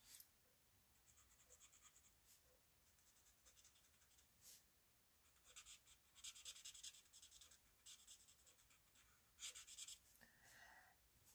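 Very faint scratching of a Stampin' Blends alcohol marker nib stroking over paper while colouring, in short strokes that come thickest about halfway through and again near the end.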